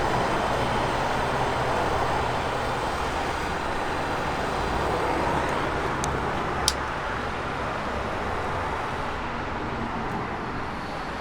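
Gas blowtorch flame hissing steadily, slowly easing off, while it melts brittle plastic to stick a broken part back on; two short clicks about six seconds in.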